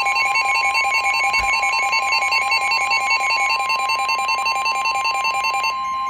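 Emergency alert attention signal: the steady single-pitched NOAA Weather Radio warning tone for a severe thunderstorm warning, with a rapid, multi-pitched electronic beeping over it. The beeping stops near the end while the steady tone carries on.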